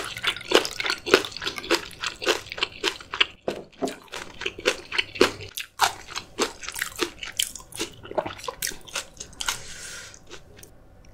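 Close-miked chewing of crunchy food: rapid wet crunches several times a second, thinning out and growing quieter near the end.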